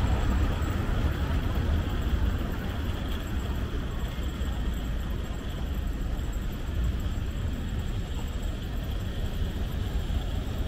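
City street ambience: the steady rumble of road traffic.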